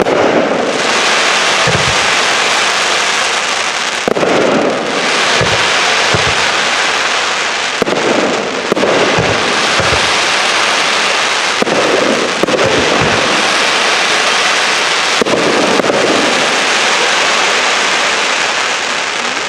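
Fireworks display: aerial shells firing and bursting as about a dozen dull thumps, over a loud, continuous crackling hiss. The sound fades near the end.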